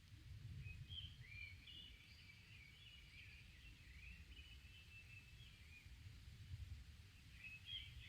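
Songbirds singing faintly, a steady string of short chirping and warbling phrases one after another, with a low rumble underneath.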